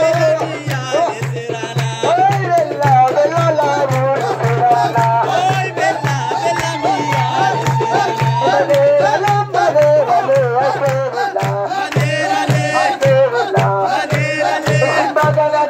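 Afar folk song: singing over a steady drum beat of about two strokes a second, with rhythmic hand-clapping from the dancers.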